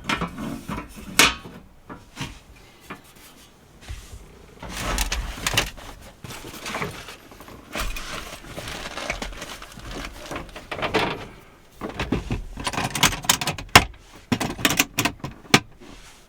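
Irregular knocks, clicks and rustling from things being handled and moved about in a small enclosed space, with a sharp knock about a second in and the loudest knock near the end.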